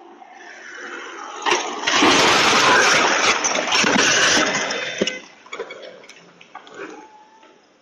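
Small airplane crashing into a car, heard through a doorbell camera's microphone. A rising rush of noise builds, there is a sudden crash about a second and a half in, and then a loud, dense rush of noise goes on for about three seconds. It drops off abruptly around five seconds in, leaving scattered pops and crackles.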